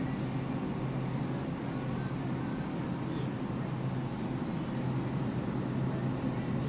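Supermarket background: a steady low machine hum with faint, indistinct voices.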